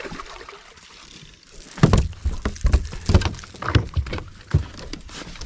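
A run of irregular knocks and thumps in a fishing boat, about two a second, starting about two seconds in.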